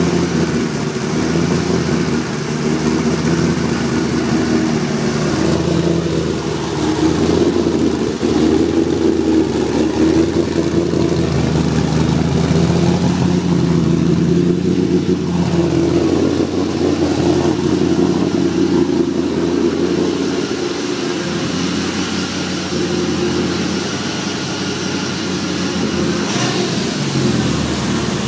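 LS1 5.7-litre V8 running through its newly completed exhaust, mostly at a steady idle with several light revs that briefly raise the pitch and level.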